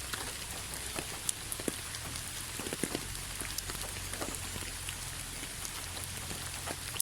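Steady rainfall, a continuous hiss with many individual drops ticking sharply on a hard surface at irregular moments.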